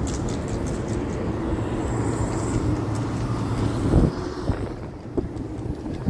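Trane Horizon rooftop DOAS unit running with a steady low hum. A single sharp thump comes about four seconds in.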